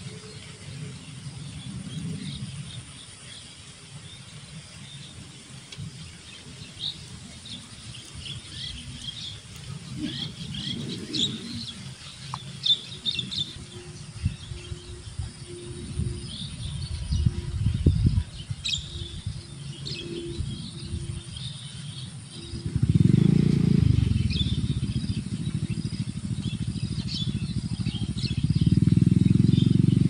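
Small birds chirping on and off, with a low rumble on the microphone that gets much louder about two-thirds of the way through and again near the end. A faint steady hum runs through the middle.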